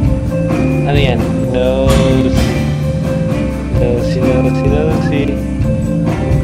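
Music with a singing voice over a steady instrumental accompaniment.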